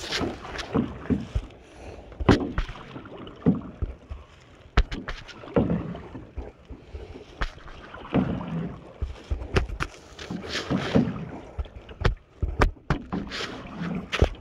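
A paddle stroking through the water beside a wooden canoe, a splashing swell about every two and a half seconds, with sharp knocks against the hull in between.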